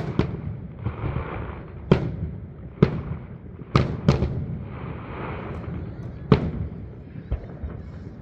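Fireworks display: aerial shells bursting in sharp bangs at irregular intervals, about eight in all and some echoing, over a continuous hiss of noise.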